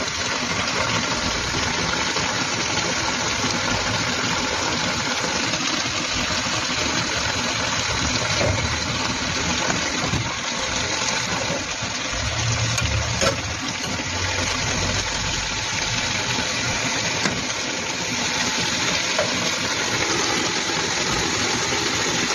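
Pinakbet vegetables sizzling in a frying pan, a steady hiss, with a few spatula knocks as they are stirred about halfway through.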